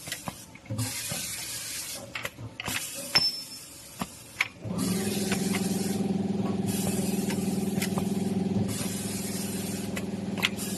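Automatic bar-chamfering machine cycling: pneumatic cylinders and grippers clack and vent repeated hissing bursts of compressed air. About four and a half seconds in, a motor starts and hums steadily under the hiss and clicks.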